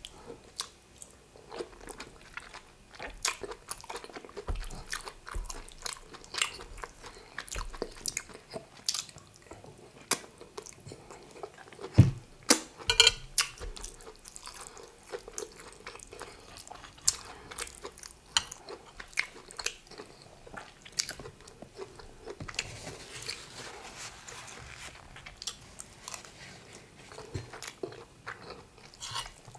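Close-miked chewing of egusi soup and rice: a steady run of sharp, wet mouth clicks, with a louder cluster of them about twelve seconds in.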